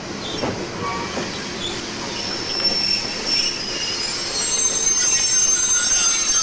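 Passenger train rolling with its steel wheels squealing on the rail: thin high-pitched squeals that build up and grow louder from about halfway through, over the steady rumble of the cars.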